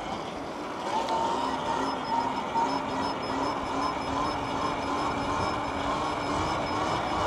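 Electric dirt bike cruising at a steady speed: a steady motor whine that wavers slightly in pitch, over a rushing noise.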